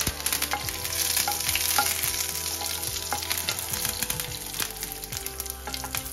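Curry leaves and mustard seeds sizzling and crackling in hot oil in a nonstick frying pan, stirred with a spatula: the tempering stage of a South Indian stir fry.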